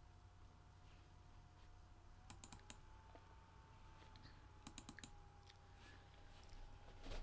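Faint clicks of a computer mouse and keyboard in small quick groups, about two seconds in and again about five seconds in, with a louder knock near the end. A faint steady whine sits underneath and steps up slightly in pitch as the first clicks come.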